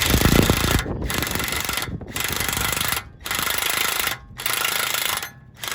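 A power tool run in four bursts of about a second each, with short pauses between.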